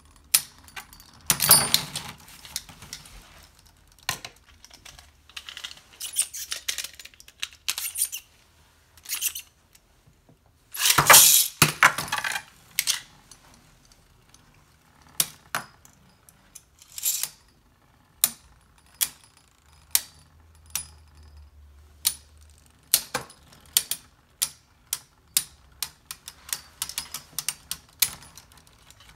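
Two Beyblade spinning tops clashing in a plastic stadium: a run of sharp clicks and knocks as they hit each other and the stadium walls, with two bursts of rapid clattering, the louder about eleven seconds in.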